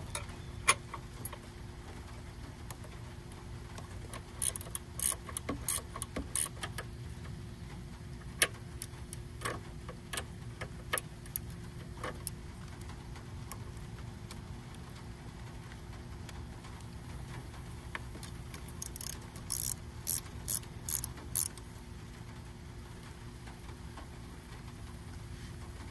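Sharp metallic clicks and taps of a 10 mm wrench working the nut on a car battery's hold-down bracket. They come in two bursts of quick clicks with scattered single clicks between, over a faint steady hum.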